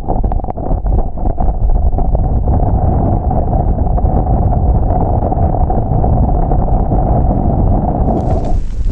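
Strong ground-blizzard wind buffeting the microphone, a loud, deep rush. About eight seconds in it changes abruptly to a brighter, hissing blast.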